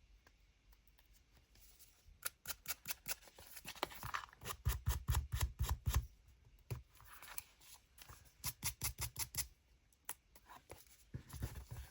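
Hand sanding tool rubbed quickly back and forth over the edges of paper and washi tape, in several short runs of rapid scratchy strokes with pauses between them, distressing the edges.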